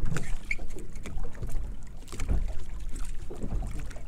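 Water lapping against a drifting boat's hull, with wind rumbling on the microphone and a few small knocks.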